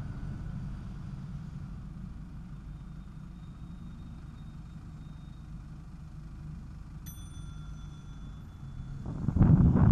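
Steady low rumble of street traffic heard from a moving bicycle, with a single ring of a bicycle bell about seven seconds in that fades over a second or so. Near the end, wind starts buffeting the microphone loudly.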